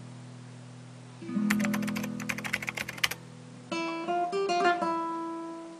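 Acoustic guitar music. A chord rings out, a new chord comes in about a second in with a quick run of strums, and picked notes follow past the middle.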